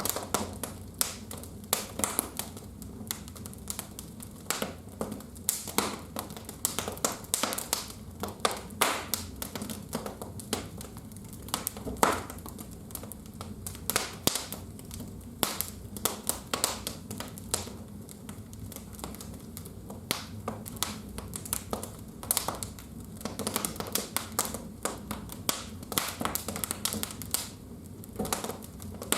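Wood fire crackling in a fireplace, with irregular sharp pops and snaps several times a second over a low steady hum.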